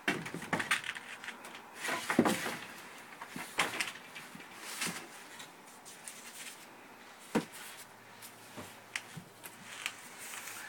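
Large painted canvases being handled and swapped by hand: irregular knocks, bumps and scrapes as one canvas is lifted away and the next is set in place, with some rustling.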